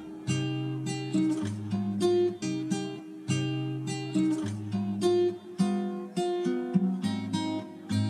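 Background music of acoustic guitar, picked notes and strummed chords at an even pace.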